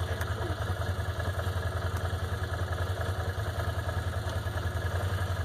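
ATV engine idling steadily, an even low hum with a fast regular pulse.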